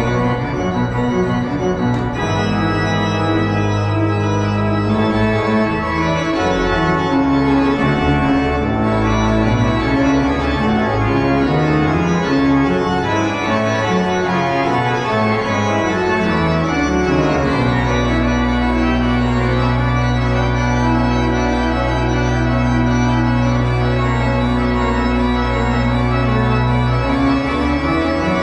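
Organ music: sustained chords over held bass notes, with the upper parts moving. From about two-thirds of the way in, a low chord is held steady under the moving voices.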